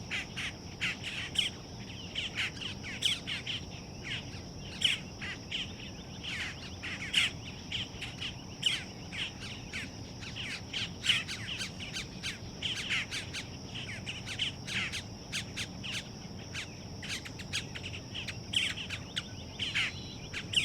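Young birds giving quick, short begging chirps over and over, several a second, over a steady high-pitched drone.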